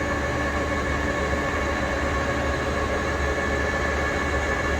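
Victor 1640B gap bed engine lathe running steadily with its spindle turning at 750 RPM: an even mechanical hum carrying several steady whining tones.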